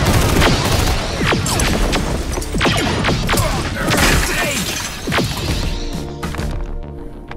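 Film battle sound mix: a string of gunshots and crashing impacts over a synthwave score. The shooting thins out and fades after about five seconds, leaving the synth music's steady held notes.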